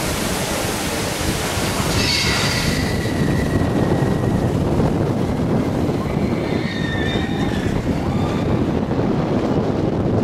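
Roller coaster train rolling fast along steel track: a steady loud rumble of wheels on rail mixed with wind buffeting the microphone, with a few brief high squeals about two seconds in and again past the middle.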